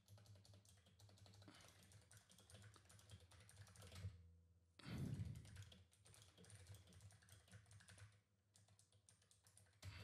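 Faint typing on a computer keyboard: quick runs of keystroke clicks with short pauses, and a brief low thud about five seconds in.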